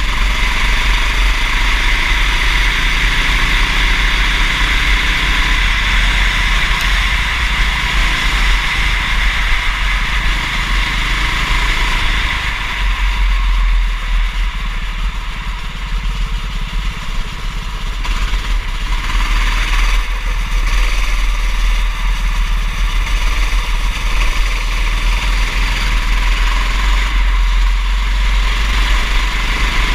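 Racing kart engine running on track, with a strong low rumble underneath. It eases off for a few seconds in the middle, then picks up again.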